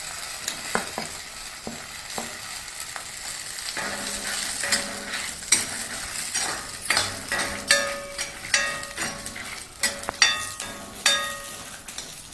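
Shallots, garlic and dried red chillies sizzling in sesame oil in a black kadai while a steel spoon stirs and scrapes the pan. From about four seconds in the scrapes come quicker and louder, many with a brief metallic ring.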